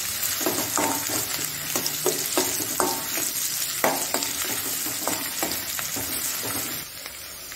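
Chopped onion sizzling in hot oil in a stainless steel kadhai as a metal spoon stirs it, with repeated clinks and scrapes of spoon on pan; the stirring stops near the end, leaving a quieter sizzle. The onion is being sautéed until golden.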